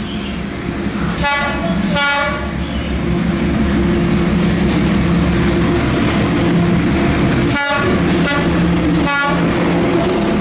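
Diesel passenger train approaching. The locomotive's horn gives four short blasts in two pairs, about six seconds apart, over the steady low drone of its engine, which grows louder in the first few seconds.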